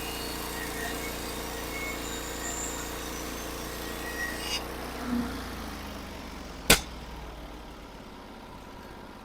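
Sawmill engine running steadily while the saw cuts through a pine log; the cutting noise stops abruptly about four and a half seconds in. A single sharp knock comes near seven seconds, with small birds chirping faintly.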